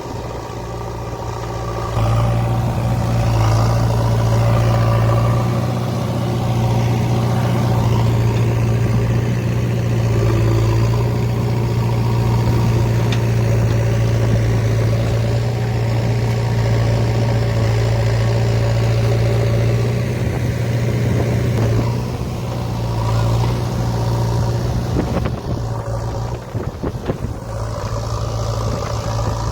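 JCB 3DX backhoe loader's diesel engine running hard with a steady hum. It gets louder about two seconds in and eases back and wavers after about twenty-two seconds.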